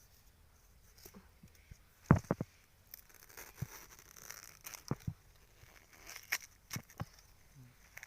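Wild bamboo shoots being cut and broken off by hand with a blade: sharp cracks and knocks, the loudest about two seconds in and several more later, with rustling and tearing sounds in between.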